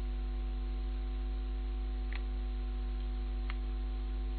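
Steady electrical mains hum with background hiss from the recording, with two faint clicks about two and three and a half seconds in.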